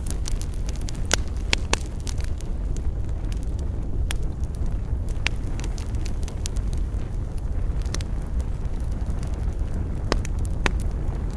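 Wood campfire crackling: sharp pops and snaps at irregular intervals over a steady low rumble.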